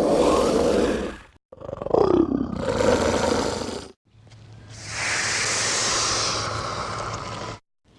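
Velociraptor dinosaur sound effects: a growling roar, then a second call whose pitch sweeps down about 2 seconds in, then a long breathy hiss that cuts off shortly before the end.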